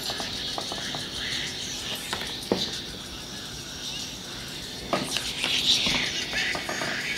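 A song leaking from two pairs of motorcycle helmet speakers, the Cardo Packtalk Bold's JBL speakers and Sena speakers, both turned up as loud as they go and held to the ears. It comes through thin and high with little bass. A couple of light clicks come from handling the speakers and wires.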